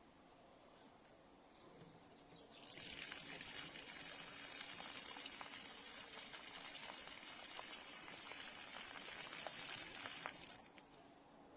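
Water running out of the tap of a plastic camping water jerrican in a steady stream, starting about two and a half seconds in and stopping shortly before the end.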